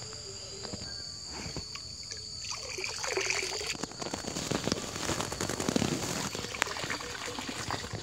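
Water sloshing, splashing and trickling as a mesh hand net is dragged through duckweed-covered pond water and lifted out dripping, growing louder about two and a half seconds in.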